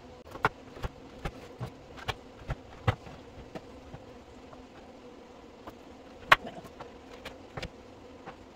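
Chef's knife chopping through baked granola bars onto a plastic cutting board: a run of sharp knocks, several a second at first, then scattered, with one loud chop about six seconds in. A faint steady hum runs underneath.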